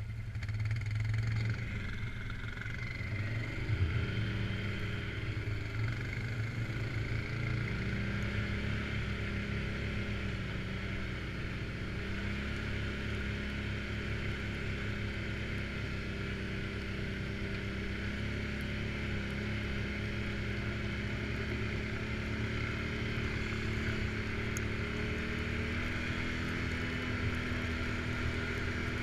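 Suzuki King Quad 750 AXi's single-cylinder four-stroke engine running under way off-road, its pitch rising and falling with the throttle for the first several seconds, then holding a fairly steady drone.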